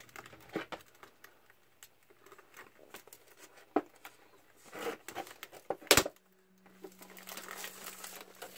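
Crinkling and clicking of a plastic packaging tray and plastic wrap being handled, with a few sharper clicks, the loudest about six seconds in.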